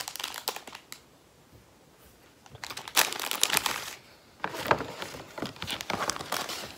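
Plastic snack wrappers crinkling and a cardboard gift box rustling as they are handled and opened, in bursts: a short burst at the start, a pause, then a loud burst about three seconds in and more rustling with small clicks toward the end.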